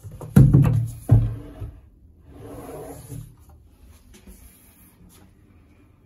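Wooden drawer being handled: two heavy thumps a little under a second apart, then a softer sliding rub.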